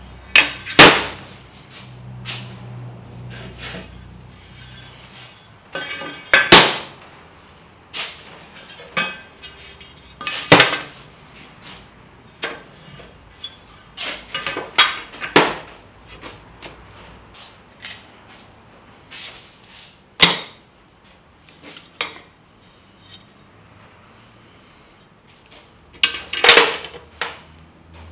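Steel angle iron and flat bar being handled and set against a hardwood block: a series of sharp metal clanks and knocks at irregular intervals, each with a short ring, the loudest about a second in, at six and a half seconds, and near the end.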